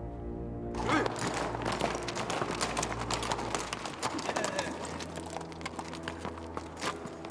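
Several horses' hooves clattering on a dirt road as the horses are ridden in, starting suddenly about a second in, over background music.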